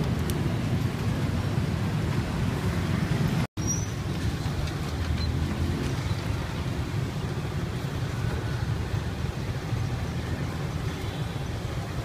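Steady street background with a low rumble of passing traffic, the sound briefly cutting out a few seconds in.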